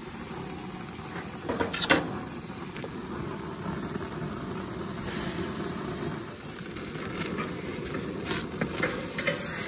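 Pork chops hissing and sizzling steadily on a hot grill, with metal tongs clinking against the grate, loudest about two seconds in and several more times near the end.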